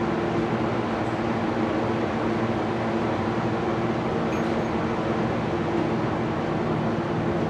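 Steady mechanical hum with a low drone of several held tones, unchanging throughout.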